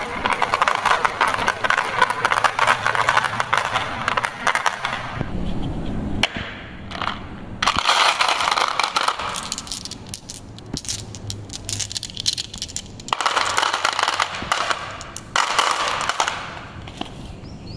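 Marbles rolling and clattering down a wooden marble run. The dense rattle comes in three busy stretches, with quieter rolling in between.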